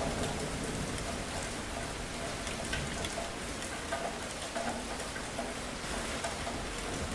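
Steady heavy rain falling on a surface, with scattered close drop ticks and a low rumble underneath.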